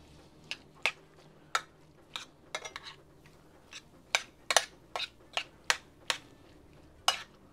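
Metal spoon clinking and scraping against a small metal pan while stirring a chunky brisket, peach and corn mixture. The clicks are short and irregular, roughly two a second.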